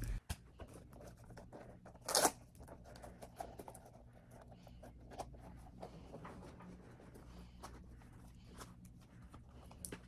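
Quiet rustling and handling sounds of bedding and belongings being moved about on a bed, with many small clicks and one short, louder rustle about two seconds in.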